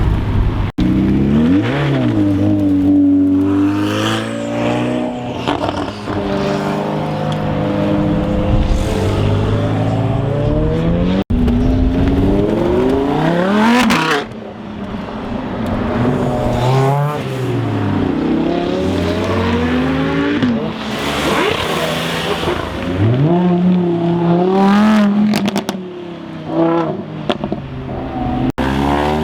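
Several supercar engines revving and driving past one after another, their pitch climbing under acceleration and dropping away as each car passes.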